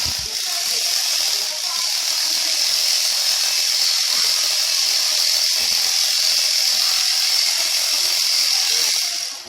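Electric sheep shears running steadily with a high, even buzz as they cut through the fleece, stopping suddenly near the end.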